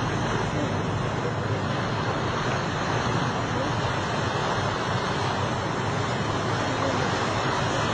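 Steady rush of wind on the microphone mixed with the sea washing past the hull.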